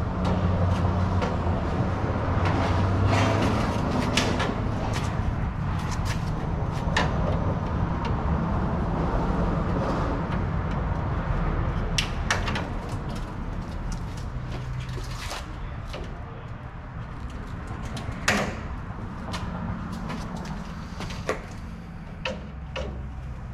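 Scattered clicks and knocks of a pickup truck's grille being handled and fastened into place, over a steady low hum.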